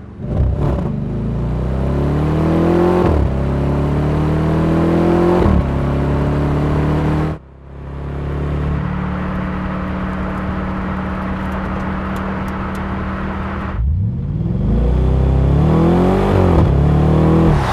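Audi RS5's V8 accelerating hard through the gears, its pitch climbing and then dropping at two quick upshifts. After an abrupt cut it holds a steady drone at constant revs, then pulls hard again with another upshift near the end.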